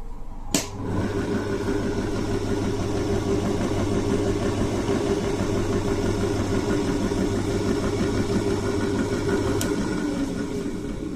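Shinko Home Scutter STD-180D switched on with a sharp click, its motor running with a steady hum for about nine seconds, then switched off with another click. This is a simple test run to show that the machine works.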